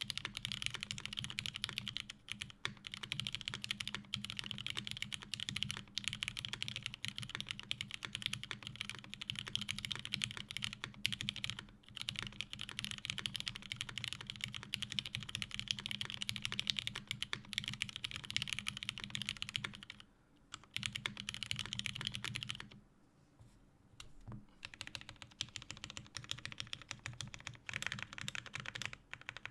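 Fast continuous typing on a custom mechanical keyboard with lubed vintage Cherry MX Black linear switches, an aluminium plate and GMK keycaps. The keystrokes stop briefly at about 20 s and again for about a second and a half at about 23 s, then resume as the modifier keys are pressed.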